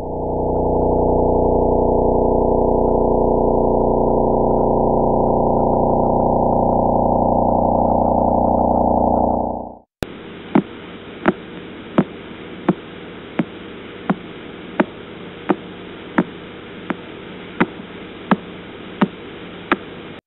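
Pulsar radio signals converted to sound, each pulse standing for one rotation of the neutron star. First comes a rapid pulsar's steady dense buzz. About halfway through it switches to a slower pulsar: sharp regular clicks about 1.4 times a second over a steady hiss.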